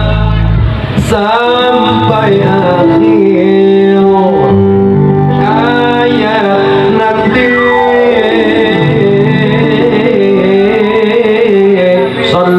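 Live band music with a wavering, sliding melody line held over guitar accompaniment. These are the closing bars of the song, with two brief breaks in the sound: about a second in and near the end.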